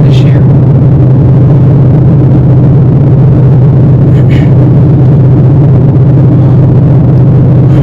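Vehicle engine running with a loud, steady low drone, with a short tick about four seconds in.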